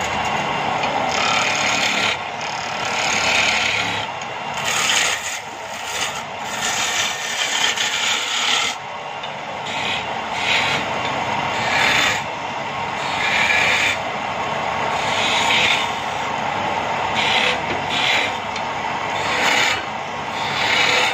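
Motor-driven wood lathe running with a steady hum while a hand-held turning chisel cuts into a spinning wooden cot leg, each cut heard as a scraping spell of a second or two, repeated many times.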